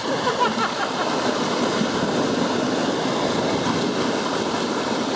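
Water rushing and splashing out of a yellow inflatable whitewater raft as it is heaved up onto its side to drain, pouring steadily into the shallow river.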